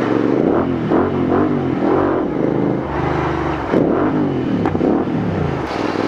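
Royal Enfield Interceptor 650's parallel-twin engine through a Red Rooster aftermarket slip-on exhaust, loud, revved in a series of quick throttle blips so the pitch rises and falls several times while riding.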